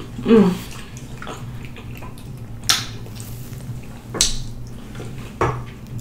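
Wet mouth sounds of someone eating rotisserie chicken with their fingers: a short hummed "mm" at the start, then three sharp wet smacks spaced about a second and a half apart, over a low steady hum.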